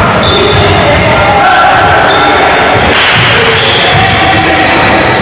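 Basketball bouncing on a hardwood gym floor.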